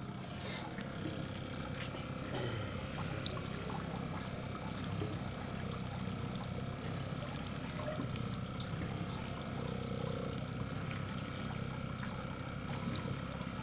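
Water from an aquaponics system's PVC return pipes pouring and trickling steadily into a gravel grow bed, with a low steady hum underneath.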